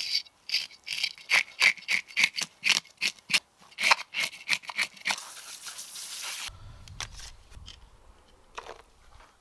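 A quick, irregular run of sharp scraping clicks, about four or five a second, stopping after about five seconds. A low rumble follows near the end.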